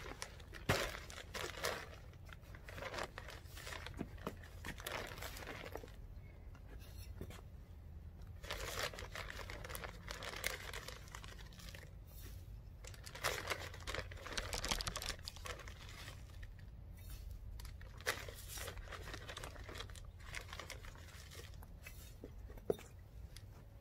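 Plastic bag of composted chicken manure crinkling and rustling in bursts as it is handled and scooped from, with the scrape of a hand scoop and manure pouring into a felt grow bag; a few sharp clicks.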